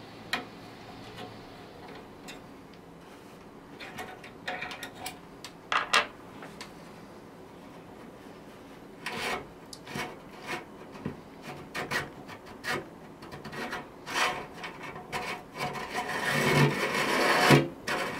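Scattered clicks and short metal scrapes as a screwdriver works on a Solidoodle 3 printer's extruder carriage and stepper motor. Near the end comes a longer, louder scraping rub, metal on metal, as the smooth guide rod is slid out through the carriage.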